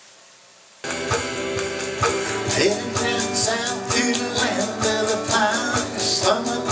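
A guitar and electronic drum kit start playing a song's intro together, cutting in suddenly about a second in over a faint hiss, with a steady beat of drum hits.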